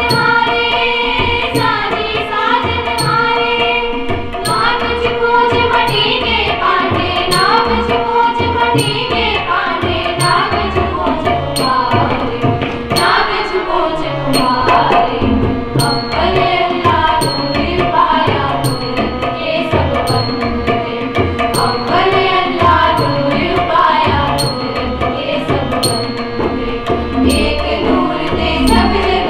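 A group of girls singing a Sikh shabad, a devotional hymn, together, with tabla playing a steady rhythm beneath the voices.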